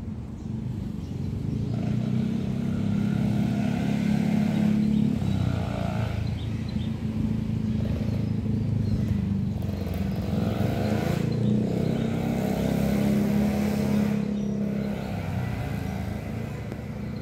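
A motor vehicle engine running, with a low steady hum and a pitch that glides up and down. It swells louder twice, a few seconds in and again past the middle.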